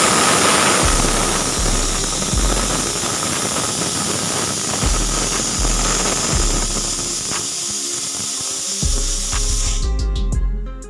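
Pressure cooker whistle: a loud hiss of steam venting through the whistle valve, with a whistling tone in the first second, cutting off about ten seconds in. Background music with a steady beat plays underneath.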